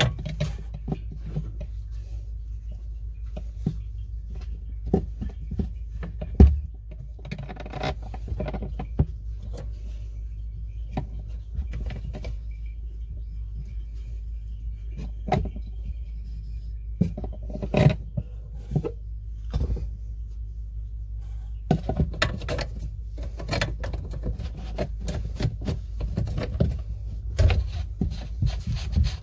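Handling noises from plastic sink drain parts: scattered clicks, taps and rubbing as a rubber slip-joint washer and the P-trap's slip nut are fitted onto the tailpiece. A steady low hum runs underneath.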